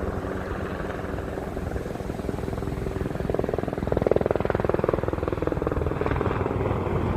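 Helicopter flying over: a steady engine drone and rotor rumble, swelling louder about three seconds in.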